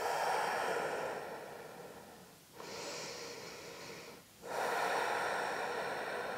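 A woman's slow, deep breathing close to a clip-on microphone: a loud breath of about two seconds, a quieter, hissier one, then another loud one.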